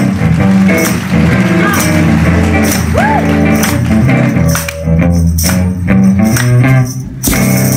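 Live soul band music with electric guitar and a shaken, struck tambourine keeping time. In the second half the band plays a run of short, separated hits with brief gaps between them.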